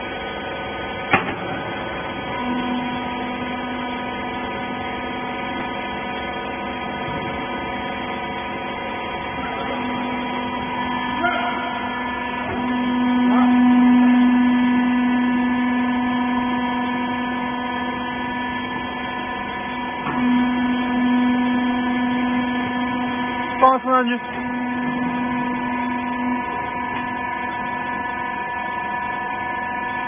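Small 10 kg rag baler's hydraulic power unit running with a steady hum, a low tone in it swelling and dropping away for stretches of several seconds as the machine works. A few short knocks break in near the middle and again about three-quarters of the way through.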